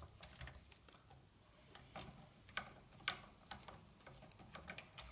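Faint, scattered clicks and ticks of pliers gripping small metal steering parts while an aluminium servo saver is screwed onto an RC truck's steering arms.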